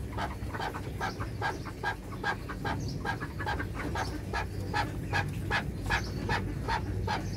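Partridge calling a steady, rhythmic series of short notes, about three a second.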